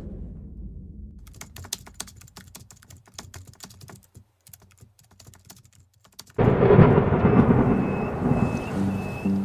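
Logo-intro sound effects: the tail of a whoosh fades out as a low rumble under a run of quick, crackling clicks like typing. About six and a half seconds in, background music starts suddenly and loudly.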